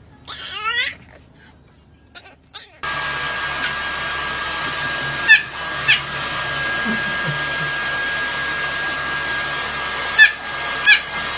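A puppy gives one short high whine that rises and falls, about half a second in. From about three seconds in, a hair dryer runs steadily while a fluffy white puppy lets out four short high yips.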